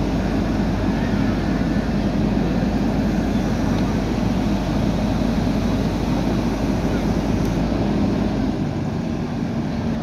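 JCB 3DX backhoe loader's diesel engine running steadily under load while the backhoe arm lifts concrete culvert pipe. The deep rumble thins out about eight seconds in.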